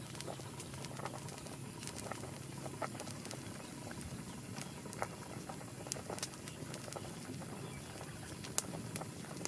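Water boiling hard in a wide metal pan over a wood fire: a steady bubbling hiss with scattered sharp pops.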